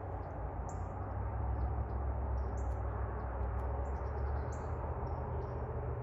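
Birds chirping: short, high, downward-sliding chirps, the loudest recurring about every two seconds with fainter ones between, over a steady low rumble.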